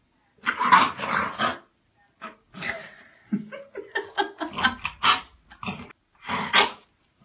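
French Bulldog barking playfully and excitedly: a loud burst of barking about half a second in, a run of shorter barks through the middle, and one more bark near the end.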